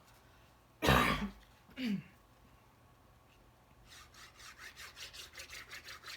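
A person coughs once, then gives a short throat-clearing sound that falls in pitch. From about four seconds in, a run of quick scratchy rubbing strokes, about four or five a second, on paper at the worktable.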